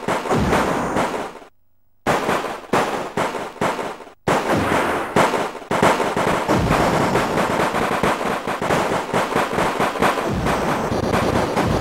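Battle sound effects of gunfire: separate shots a few a second, cut to silence briefly twice, then rapid, continuous machine-gun-like firing from about four seconds in.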